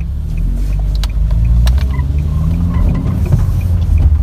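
Nissan X-Trail driving, heard from inside the cabin: a low engine and road rumble that grows louder as the car picks up speed. A faint, regular ticking and a few sharp clicks sit above the rumble.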